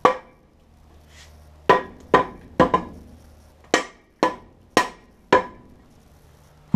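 Rubber mallet tapping the bellhousing onto the DeLorean transmission case, seating it over its dowel pins: about nine sharp knocks at uneven spacing, each with a brief metallic ring.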